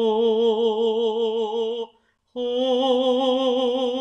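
A singing teacher's voice demonstrating a vocal resonance exercise on an open, breathy 'ho' vowel. It holds two long notes with vibrato, the second starting a little higher about two seconds in, to show a round, wide sound placed in the facial resonance.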